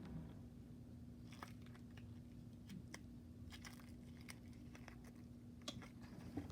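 Faint scattered crackles and clicks from a homemade balloon squishy filled with oatmeal being squeezed, over a steady low hum.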